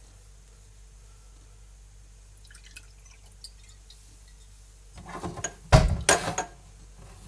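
A clear spirit trickling and dripping into a shot glass, faint, then glassware knocking and clinking on the counter in a loud cluster about five to six and a half seconds in.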